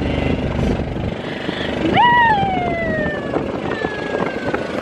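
Golf cart ride with a low running rumble that drops away about a second in. Midway a single high whoop jumps up and slides down over about a second and a half, followed by a fainter falling call near the end.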